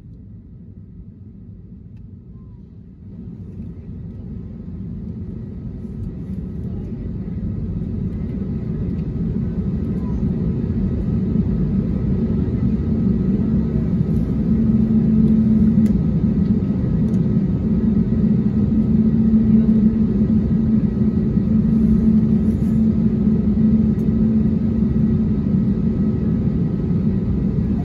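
Airliner engines heard from inside the cabin, a low rumble with steady whining tones above it. It swells from about three seconds in and levels off loud, the engines spooling up as the plane taxis before takeoff.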